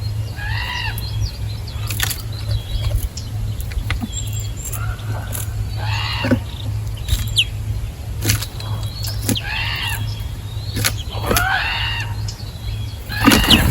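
Birds calling at a feeding spot: a harsh, arched call repeated about five times, a few seconds apart, with sharp clicks and taps between the calls over a steady low hum.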